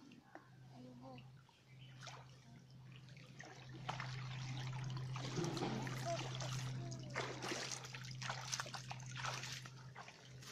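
Pond water sloshing and splashing around a person's legs as they wade through shallow water, with water trickling and dripping from a hauled-in cast net. The splashing gets louder about four seconds in.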